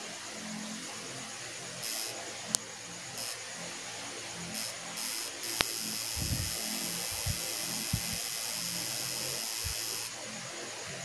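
Tattoo machine buzzing in a few short bursts, then running steadily for about four seconds before it stops. A couple of sharp clicks and some low bumps from handling come with it.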